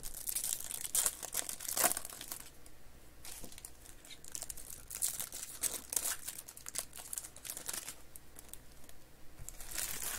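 Foil wrapper of a Panini Select basketball card pack crinkling and crackling in fits and starts as hands tear it open and work the cards out.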